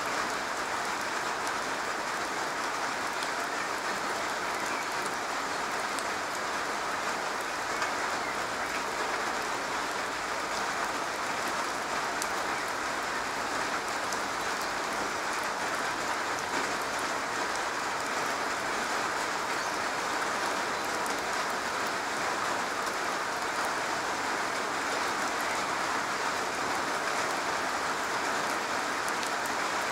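Steady rain falling on a garage roof: an even, unbroken patter of many drops.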